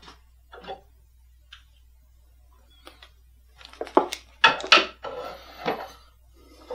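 Glass clinking and knocking as a glass bong is handled: a few light clicks early on, then a quick cluster of sharp clinks about four seconds in, followed by a brief rustle.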